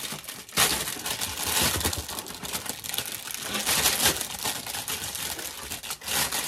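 Packaging crinkling and crackling as an item is unwrapped by hand. A dense, continuous crackle starts sharply about half a second in.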